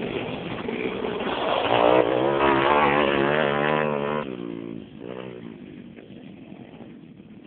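Pit bike engine revving hard with a wavering pitch, loudest from about two to four seconds in. It drops away after one last short rev about five seconds in.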